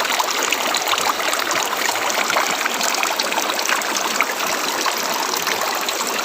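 River water running over rocks in a steady, dense rush, full of small splashes and trickles.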